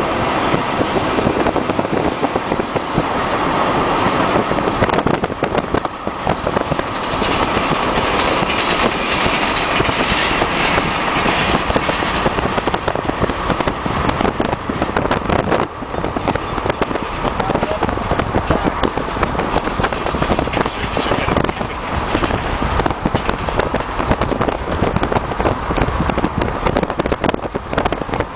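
Heavy wind buffeting and crackle on the microphone from a fast-moving car, over road noise, with a freight train's diesel locomotives and rolling cars running alongside.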